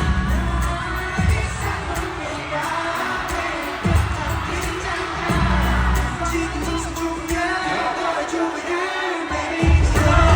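K-pop song performed live through a concert sound system, with singing over the track. The heavy bass drops out twice and comes back near the end.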